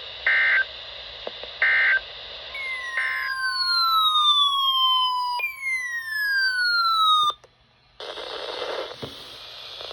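Three short bursts of Emergency Alert System data tones from NOAA Weather Radio, the end-of-message code after a tornado warning. After them come falling whistling tones over a steady tone, which break off with a click. After a moment of near silence, the radio's steady hiss returns.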